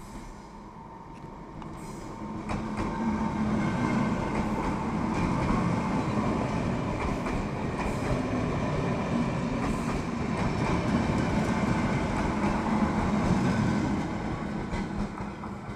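Czech Railways class 460 electric multiple unit passing close by, its wheels rumbling and clacking on the rails under a steady whine. The sound builds over the first few seconds and fades near the end as the train moves away.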